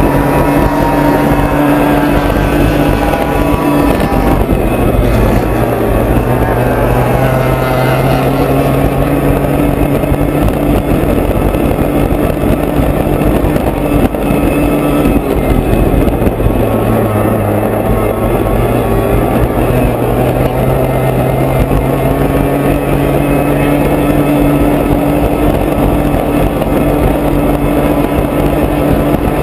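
Onboard sound of a racing powerboat at full speed: its engine running hard and steady under a rush of wind and water. The engine note drops and shifts pitch a few seconds in and again about halfway through.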